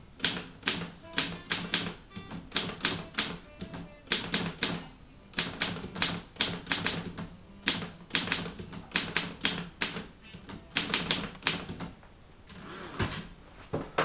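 Underwood manual typewriter being typed on: a fast, irregular clatter of keystrokes in bursts that stops about eleven and a half seconds in. A short rustle and a knock follow near the end.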